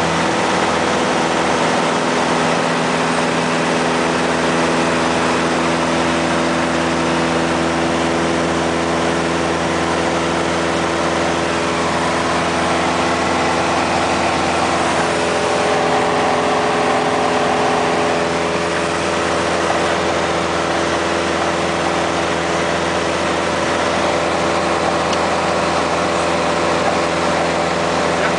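A small private plane's engine and propeller droning steadily at takeoff power, heard from inside the cabin as it takes off and climbs. The pitch of the drone shifts slightly about halfway through.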